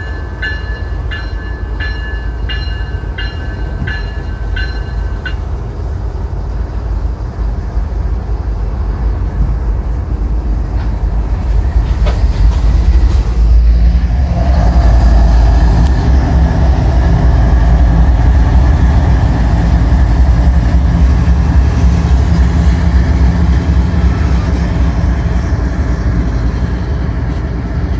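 CSX diesel freight locomotives and their train rolling past close by, with a heavy low rumble that swells and grows louder about halfway through. A grade-crossing signal bell rings about twice a second for the first few seconds, then stops.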